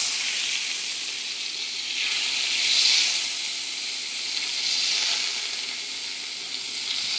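Pancakes frying in butter in a hot pan, a steady sizzle that swells slightly a few times.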